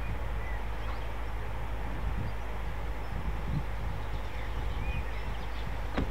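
Low, steady rumble of an aircraft towing tug's engine as it tows a Spitfire along the taxiway. A few faint, short, high bird chirps come through over it.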